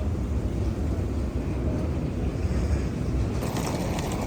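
Outdoor wind buffeting the microphone as a steady low rumble, with a brighter hiss joining about three and a half seconds in.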